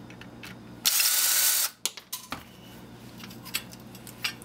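Cordless drill-driver spinning once for under a second, about a second in, backing a screw out of a metal faucet, followed by scattered light clicks and knocks of metal parts being handled.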